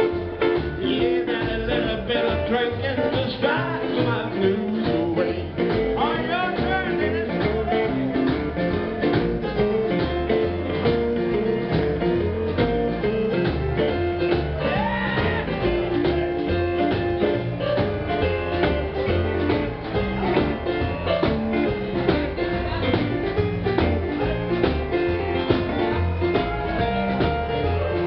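Live blues band playing: semi-hollow electric guitar, upright bass and drums.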